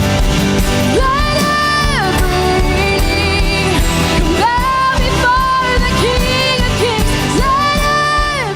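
Live worship band playing, with a singer holding long notes of about a second each over the band, without clear words.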